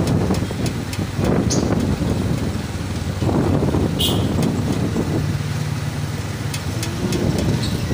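Engine and road noise of a vehicle driving along a street, a steady low drone that swells a few times. A sharp click about four seconds in.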